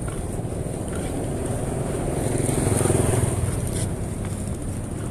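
Street traffic: the low rumble of a motor vehicle's engine passing by on the road, swelling about two to three seconds in and then fading.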